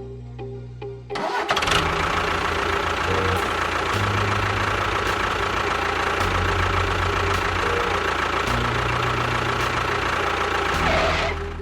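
A motor starts about a second in and runs steadily with a high whine, then cuts off near the end, over background music.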